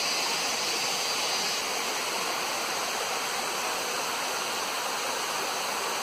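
Steady rush of a waterfall, water splashing down over rocks into a pool.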